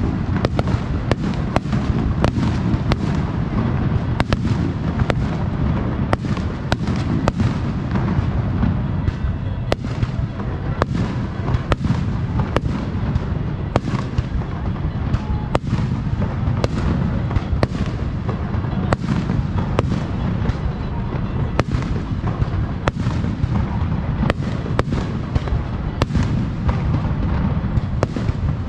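Aerial fireworks bursting in rapid succession: many sharp bangs, several a second, over a continuous heavy low rumble of shells.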